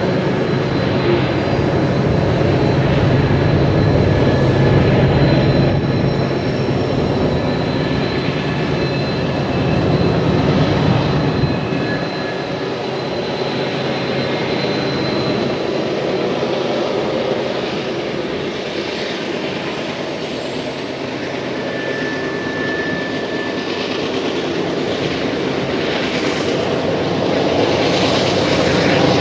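Freight train rolling past: a steady, loud rumble of cars on the rails, heavier in the first few seconds and again around ten seconds in, with a few faint high-pitched tones over it.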